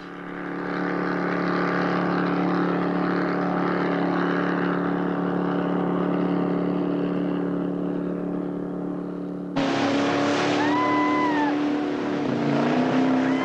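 Speedboat engine running steadily at high speed. About two-thirds of the way through it cuts abruptly to a louder, closer sound with water-spray hiss and a few brief rising-and-falling whistle-like tones.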